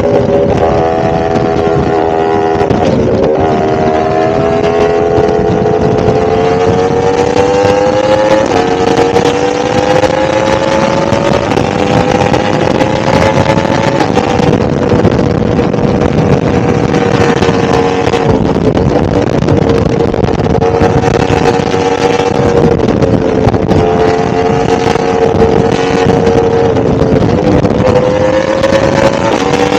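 A 1000cc motorcycle engine running under way. Its note climbs gently over the first ten seconds or so, stepping in pitch a few times, then holds fairly steady at cruise.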